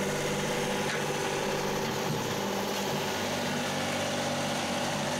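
John Deere 2038R compact tractor's three-cylinder diesel running steadily while it back-drags and grades soil with the loader bucket. The engine note shifts slightly about two seconds in.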